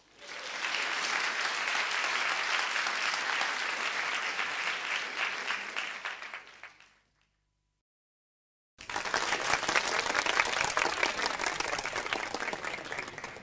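Two studio-audience applause sound effects, one after the other. The first swells in and fades out over about seven seconds; after a second and a half of silence the second starts abruptly, with sharper separate claps, and begins to fade near the end.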